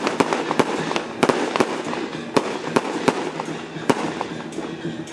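Firecrackers going off in irregular sharp cracks, several each second, over a steady background din.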